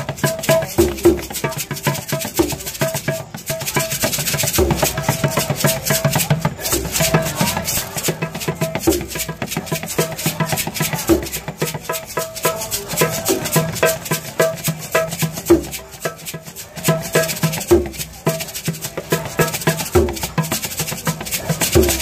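Improvised hand-percussion playing: a small skin hand drum struck by hand with irregular low thumps, over constant fast rattling from shakers.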